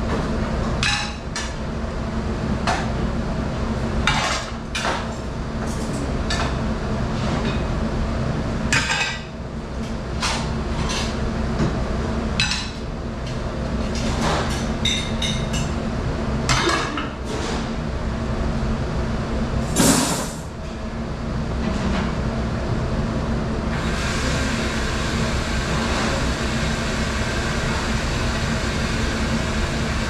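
Commercial dish room: a dish machine runs with a steady hum while plates and bowls clink and clatter against each other and the stainless dish table, with a louder clatter about 20 s in. About 24 s in, a steady rushing noise comes in and carries on.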